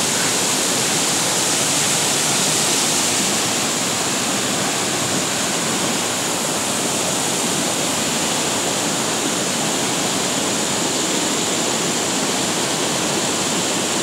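Mountain river rushing over boulders in whitewater cascades: a loud, steady rush of water.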